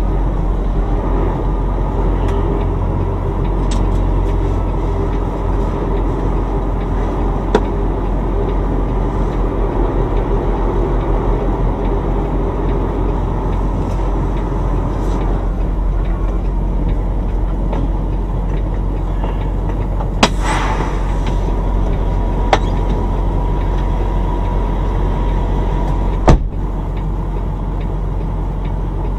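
Semi-truck's diesel engine running steadily at low speed, heard from inside the cab while the truck is maneuvering. About two-thirds of the way through there is a short hiss of air, and a few light clicks. Near the end there is a sharp knock.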